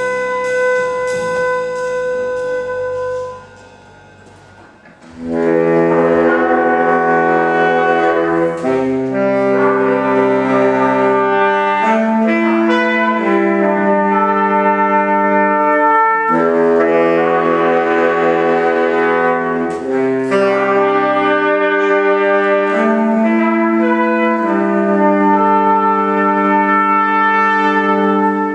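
Small jazz ensemble of saxophones, trumpets, piano, upright bass and drums playing. After a brief break about four seconds in, the horns play long held chords that change every second or two, closing the tune on a final chord.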